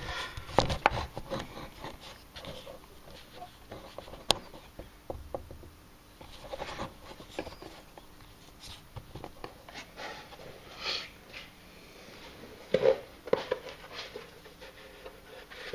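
Scattered clicks, knocks and light rustles of things being handled and moved, with a few brief breath-like sounds; no welding is heard.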